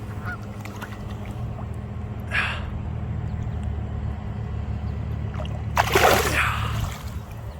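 A short splash in pond water about six seconds in, with a fainter noise about two seconds in, over a steady low hum.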